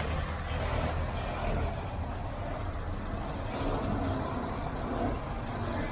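Scania S 660 truck's V8 diesel engine running as the truck drives past, a steady low rumble.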